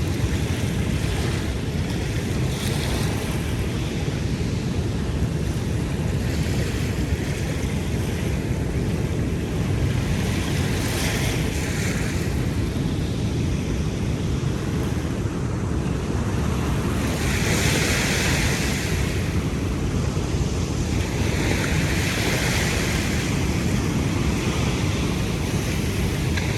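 Ocean surf washing onto a beach, with several louder hissing washes in the second half, over a steady rumble of wind on the microphone.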